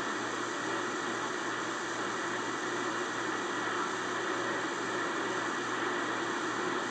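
Static from an AM radio receiver: a steady hiss of a weak signal, with a low buzzing hum underneath.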